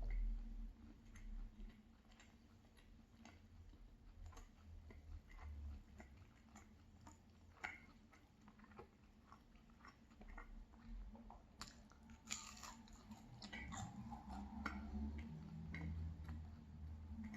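Soft, close chewing and biting of a crusty fried cheese pancake, with faint wet clicks throughout and a louder run of crunchy bites about twelve seconds in.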